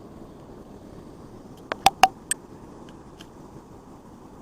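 Steady rushing of water at a mill-dam waterfall, with a quick run of four sharp clicks about two seconds in.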